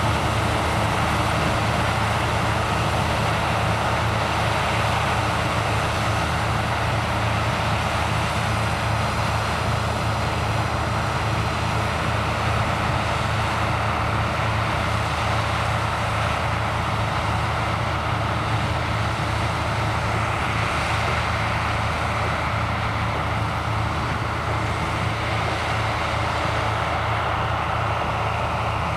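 New Holland combine harvester running steadily while harvesting corn: a constant low engine drone under a broad mechanical rushing noise, with no changes in pace.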